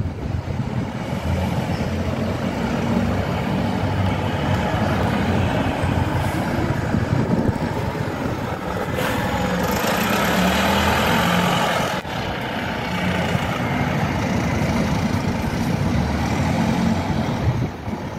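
Diesel bus engine running as a single-deck bus pulls away and passes close by, with a louder rush of hiss-like noise for about three seconds in the middle that cuts off suddenly.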